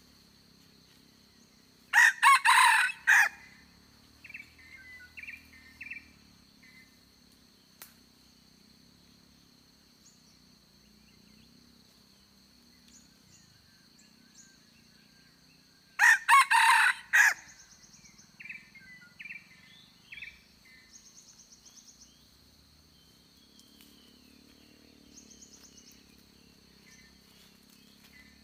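Decoy rooster crowing loudly twice, about fourteen seconds apart, each crow followed by a few short, quieter calls. The crow is used to lure wild junglefowl to the trap.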